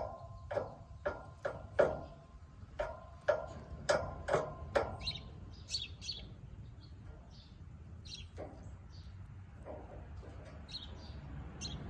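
Hen pecking at the ground close to the microphone: a quick run of sharp taps, about two a second, for the first five seconds. High bird chirps follow through the rest.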